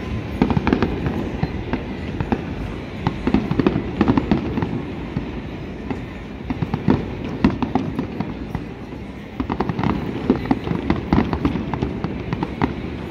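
Fireworks display: aerial shells bursting in irregular volleys of bangs. There is a lull in the middle, then a dense run of bangs from about nine seconds in.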